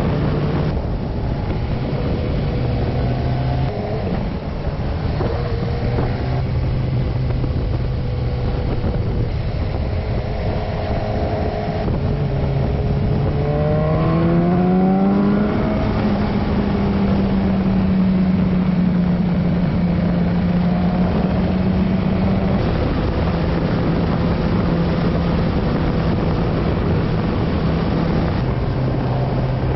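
Motorcycle engine running under way over a steady rush of noise. About halfway through, the engine note rises smoothly as the bike accelerates, holds higher for several seconds, then drops back to a lower note.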